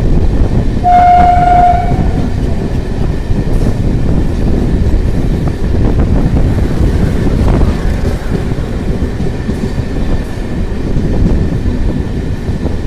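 Train running with a loud, steady rumble, and its horn sounding once for about a second near the start.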